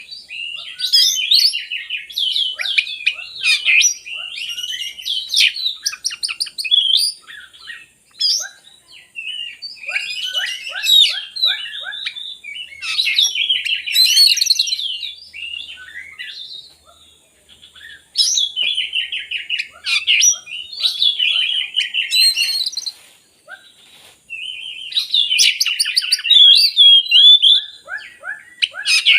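Oriental magpie-robin (kacer) singing a loud, rich song of rapid, varied whistled and chattering notes, delivered in phrases of several seconds with brief pauses between them.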